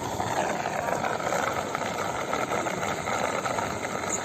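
Floodwater rushing steadily through a dam, an even noise without breaks.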